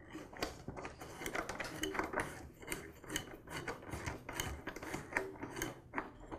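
Plastic bump head knob and spool of a Ryobi 132R string trimmer being turned and fitted onto the shaft by hand: irregular light plastic clicks and rubbing.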